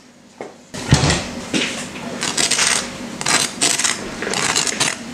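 Knife sawing through the crisp, caramelized sugar-and-butter crust of a freshly baked kouign-amann, a run of crunching, crackling strokes starting about a second in, the first with a dull thud.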